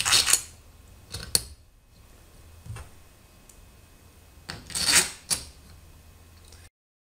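Small metal parts clinking and rattling as a metal gantry plate fitted with loose M5 bolts and spacers is handled and turned over on a table, in a few short bursts with a louder cluster about five seconds in. The sound cuts out completely near the end.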